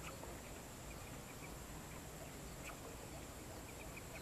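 Quiet outdoor ambience: a faint, steady, high-pitched insect drone with a few faint, short bird chirps scattered through it.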